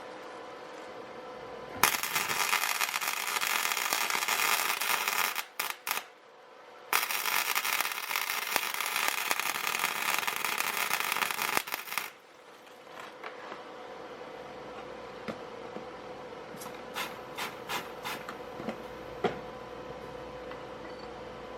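Welding arc crackling in two long runs of about four and five seconds, with a few short blips between them, as weld is built up on a broken exhaust manifold stud in the cylinder head so the heat will break it loose. A few light metallic clicks follow near the end.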